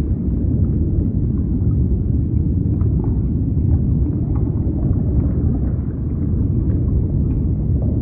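Steady, deep underwater rumble: a low wash of noise with faint, scattered clicks above it, used as a soothing white-noise bed.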